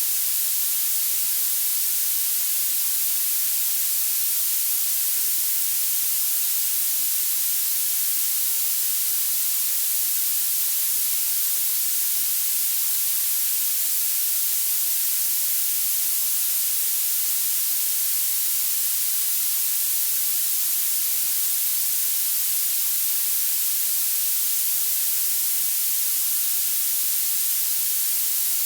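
Violet (purple) noise: steady synthetic hiss, loudest in the highest pitches and thinning toward the bass, unchanging throughout.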